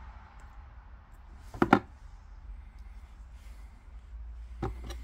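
Handling noise from peeling the adhesive backing off a small plastic trim piece with a razor blade over a cardboard box: a sharp double click about a second and a half in and another smaller one near the end, over a steady low hum.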